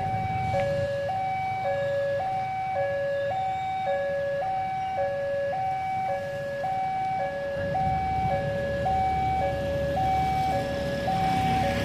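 Railway level crossing warning alarm sounding its electronic two-tone chime, a higher and a lower tone alternating steadily about once a second, warning of an approaching train. A low rumble runs beneath it and grows louder about eight seconds in.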